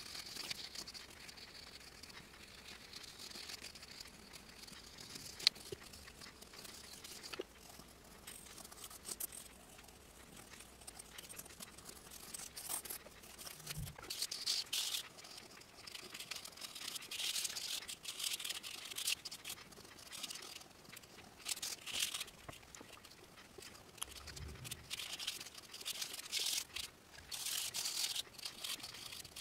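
Pencil, then charcoal, scratching across sketchbook paper in quick strokes, denser and louder in the second half.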